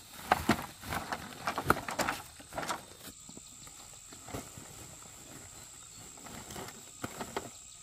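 Knocks and rustling of woven plastic sacks of corn being handled and loaded onto a motorbike, busy for the first three seconds, then a few scattered knocks.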